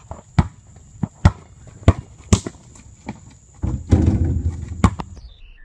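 Basketball dribbled on an asphalt driveway: sharp bounces roughly every half second, then a louder stretch of rough noise lasting about a second, starting a little past the middle.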